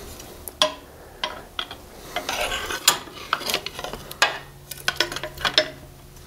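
Thin steel pipe and its fittings being worked into place on a diesel engine: irregular metal clicks, taps and scraping as the tube knocks and rubs against the engine's castings.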